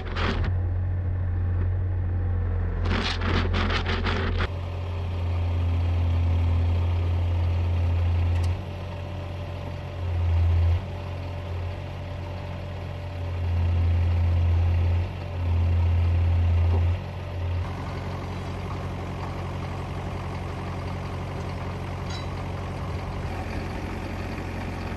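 Yanmar excavator's diesel engine running, its level rising in several short surges of a second or two as the hydraulics push, then settling to a steady idle near the end.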